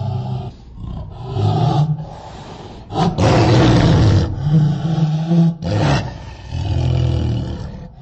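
Designed Carcharodontosaurus roar sound effect: a run of deep roars, the longest and loudest about three seconds in and lasting some two and a half seconds. Shorter, lower calls come before and after it.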